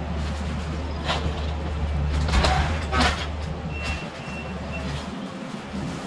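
Kubota SVL65-2 compact track loader's diesel engine running under load as its grapple bucket tears into a wood-framed garage wall, with sharp cracks of breaking timber about 1, 2.5 and 3 seconds in. After about four seconds the engine note drops, and a few short beeps of the machine's backup alarm sound.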